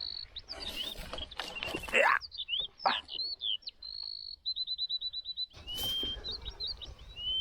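Forest birds calling: varied short whistled notes and slurs, with a quick trill of repeated notes about halfway through. Short rustles and knocks come in between.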